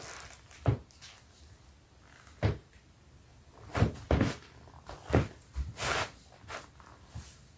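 Dr Martens boots being rubbed together, giving short squeaks one at a time at uneven intervals, about eight in all, with the loudest near one second in, around four seconds in and about five seconds in.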